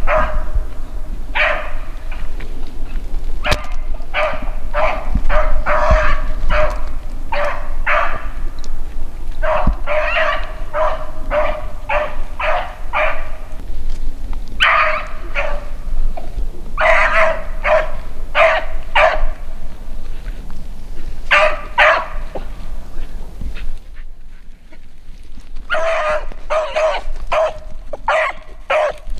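Beagle baying on a rabbit's track: runs of quick, short barks several a second, broken by a few brief pauses. It is the hound's trail voice as she follows the scent of a shot cottontail.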